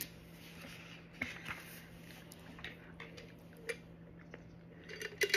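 A person handling and drinking from a metal water bottle with a black flip lid: a few scattered soft clicks and small handling noises, the sharpest click near the end, over a faint steady hum.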